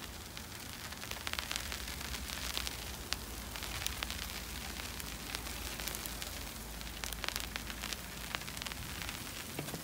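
Snow falling on an umbrella: a steady soft hiss with many scattered light ticks of flakes striking the canopy.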